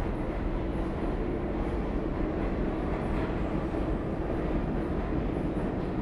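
New York City subway train running, a steady, even low rumble that holds without breaks.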